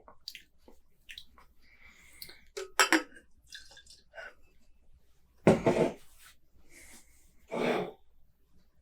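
Drinking glasses and cans handled on a tabletop: scattered light clinks and knocks, a quick cluster of knocks about three seconds in, and two louder noises of about half a second each, near five and a half and seven and a half seconds in.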